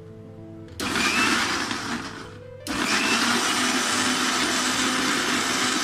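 Electric mixer grinder (mixie) blending grated carrot, orange, ginger and ice water in a stainless steel jar. It is switched on about a second in and runs briefly, then winds down. It starts again a moment later and runs steadily.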